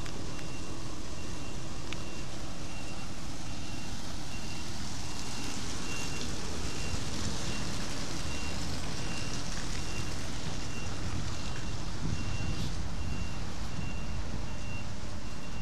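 Steady low engine and machinery rumble with a hiss, from the car ferry moored alongside. Over it, a faint high electronic beep repeats at an even pace, like a reversing or warning alarm.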